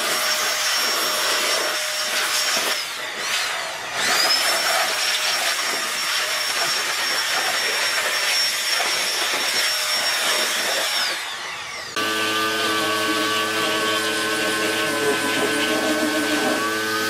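Compressed air hissing from an air-hose nozzle with a high steady whistle that breaks off briefly about three seconds in. Around twelve seconds in it gives way to a machine running with a steady, multi-tone hum.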